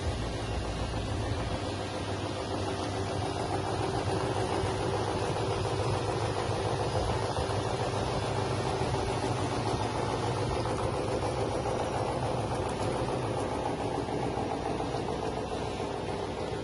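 Drum-type chicken feather plucking machine running steadily, its electric motor spinning the drum with a constant hum.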